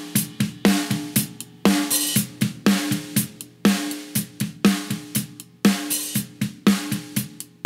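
Recorded drum kit playing back a steady beat, with a loud, ringing snare hit about once a second and softer kick, hi-hat and cymbal hits between. The snare is run fully (100% mix) through a Slate FG-116 compressor, so this is the completely compressed snare sound.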